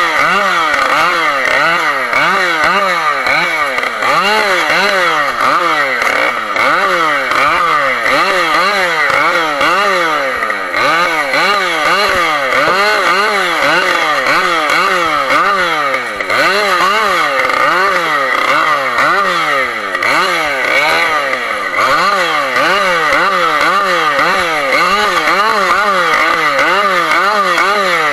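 Husqvarna 572 XP G two-stroke chainsaw delimbing a felled conifer stem: the engine revs up and drops back over and over, about once or twice a second, as each branch is cut.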